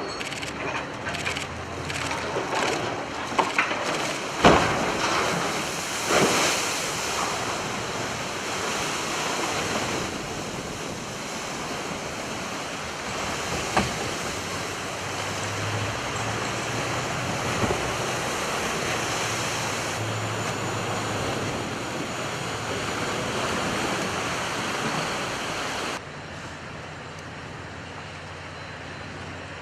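Rushing, surging sea water with wind noise on the microphone, a steady roar broken by a few sharp knocks. It drops in level suddenly near the end.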